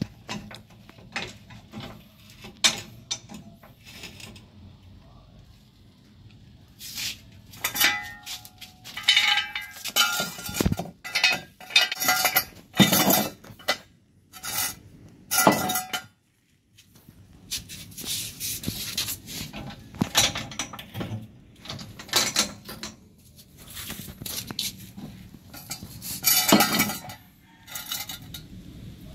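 Metal hand tools and parts clinking and clattering in irregular knocks and rattles, some with a brief metallic ring, from hand-tool work on a car's fuel tank and fuel pump.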